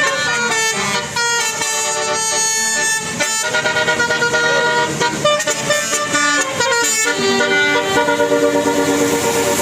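Bus telolet horn: a multi-tone musical horn on a tour bus playing a melody, several notes at once that change pitch in steps. In the second half it sounds in quick repeated toots.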